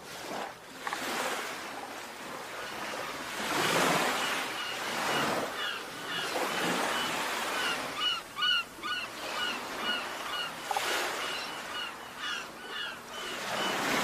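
Sea waves surging and washing on a shore in slow swells, with birds giving short, repeated calls over them.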